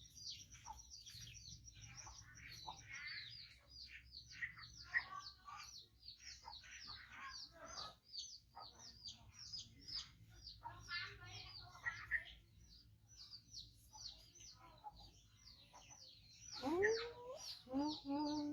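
Small birds chirping steadily, with short high chirps that fall in pitch, a few each second. A voice comes in near the end.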